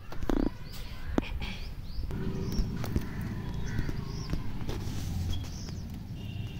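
Birds calling over and over in short arching calls, with a few sharp clicks and a steady low rumble underneath.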